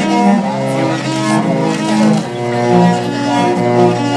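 Viola playing a slow melody of long bowed notes.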